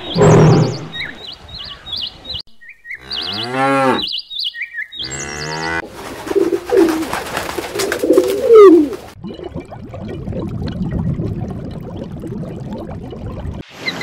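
A run of short animal clips. It opens with high, bird-like chirps, typical of a cheetah. A long pitched call rises and falls a few seconds in. About halfway, feral pigeons coo in low, bending calls, and a stretch of low, even noise follows near the end.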